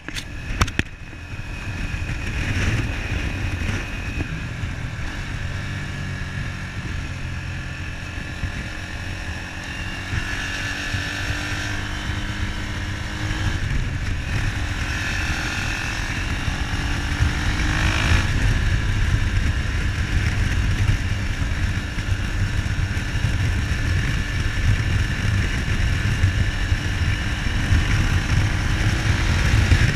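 Motorcycle engine running while riding, its pitch rising and falling several times with throttle and gear changes, over a steady low rumble.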